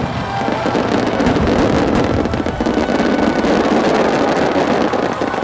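Large starmine fireworks barrage: many shells and ground fountains bursting and crackling at once in a dense, continuous wash of sound.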